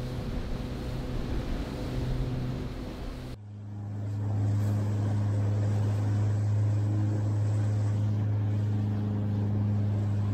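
A boat's outboard engine running at steady revs, at first under wind and water rush. About three seconds in the wind noise drops away and a steady, deeper engine drone takes over.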